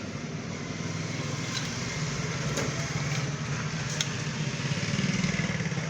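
A steady low motor hum that swells slightly near the end, with a few faint clicks.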